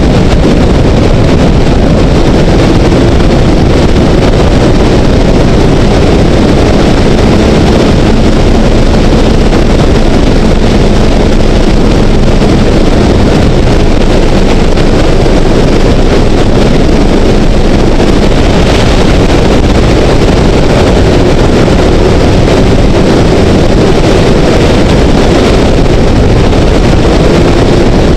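Heavy wind rush on a helmet-mounted camera at motorway-like speed, about 100 km/h, with the Honda CBR900RR's inline-four engine droning faintly and steadily underneath.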